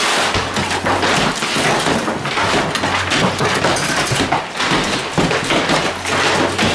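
Hammers and crowbars breaking plaster off walls: a dense run of irregular knocks and blows with plaster and debris crumbling and falling.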